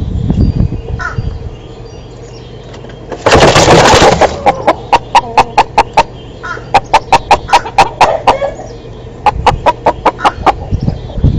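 Chickens clucking in quick runs of short pulses, about four or five a second, after a brief loud burst of noise about three seconds in.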